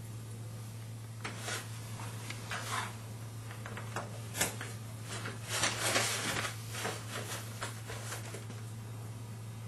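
A wire-mesh basket and its plastic end caps are handled and pressed together, giving scattered clicks, rattles and rustles, loudest in the middle. Under them runs a steady low hum.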